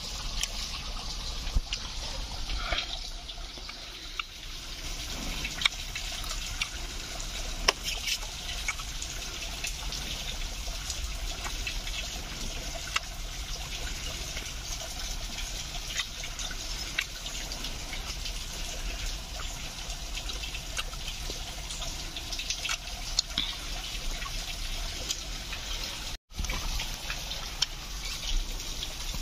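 Running water trickling steadily, with occasional short clicks over it.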